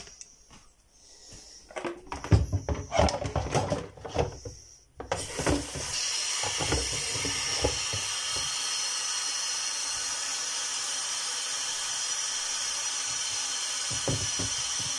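Knocks and clatter of a plastic bowl and metal vessel being handled and set down in a sink, then about five seconds in a kitchen tap is turned on and water runs steadily into the bowl. A few knocks near the end as the vessel is handled under the stream.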